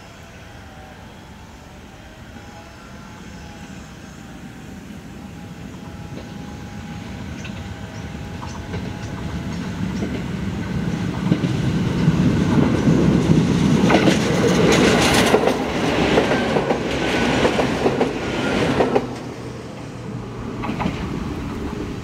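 Izuhakone Railway 3000 series electric train approaching and passing: a rumble that builds over about ten seconds, wheels clattering over rail joints at its loudest, and a tone falling in pitch as it goes by, then dropping away quickly.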